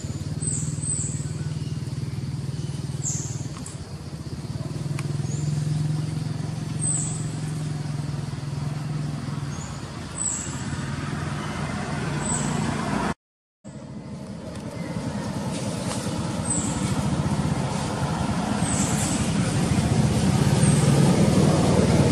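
Steady rumble of road traffic, with short high chirps over it every second or two. The sound cuts out for a moment about 13 seconds in.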